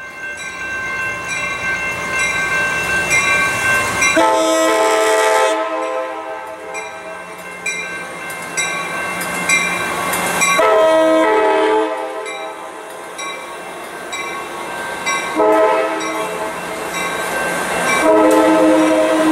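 Amtrak Pacific Surfliner train sounding its horn in the grade-crossing pattern: two long blasts, a shorter one, then a long one starting near the end. A warning bell clangs about once a second throughout.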